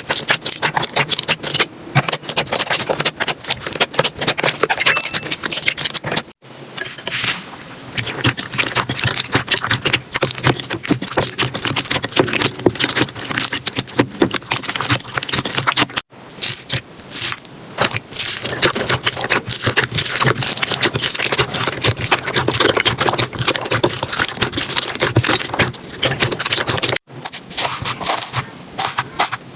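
Slime being squished and pressed by hand close to the microphone: a dense, continuous stream of small clicks, pops and crackles. The sound drops out for an instant three times, about six, sixteen and twenty-seven seconds in, as it moves from one batch of slime to the next.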